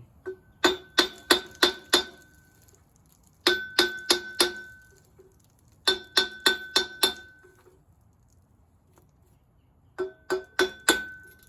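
Hammer blows ringing on steel, in four quick runs of four to six strikes each, to pop the flywheel off the crankshaft of a Kohler K-series cast-iron engine.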